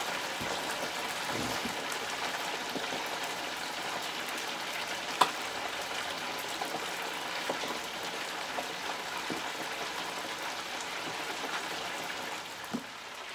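Chicken wings deep-frying in hot oil: a steady sizzle with a fine crackle of small pops, and one sharper pop about five seconds in.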